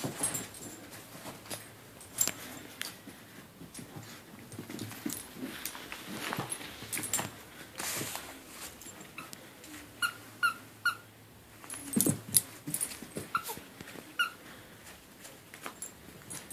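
Puppies whimpering, with short high-pitched squeaks (three quick ones about ten seconds in, another near fourteen seconds), amid scattered clicks and scuffling.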